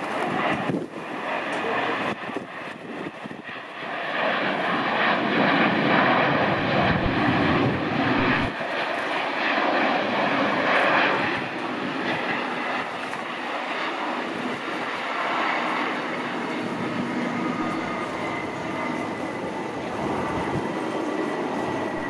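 Boeing 747 Dreamlifter's four turbofan engines running with a loud, steady jet roar as the freighter rolls along the runway. The roar is strongest in the middle and eases toward the end. Strong wind buffets the microphone in low gusts.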